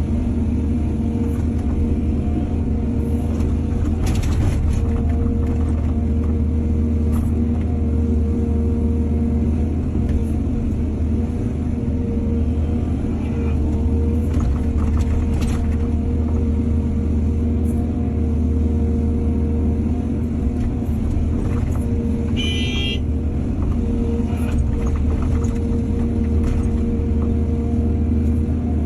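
Excavator's diesel engine running steadily under load, with scattered clanks and a brief high-pitched squeal about two-thirds of the way through.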